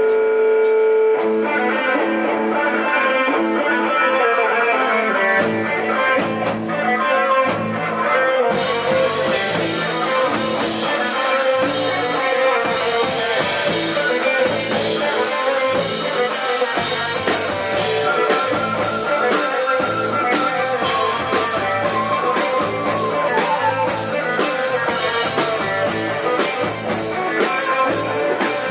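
Background music: guitar-led rock with a drum kit, the beat filling out after the first several seconds.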